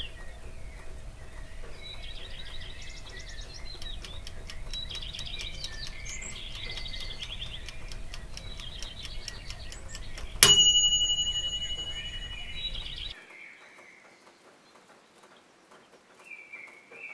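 Birdsong chirping over a low steady hum, with faint even ticking. About ten and a half seconds in a single bright ding sounds and rings on for about two seconds, then everything cuts off, leaving near silence with a few faint chirps near the end.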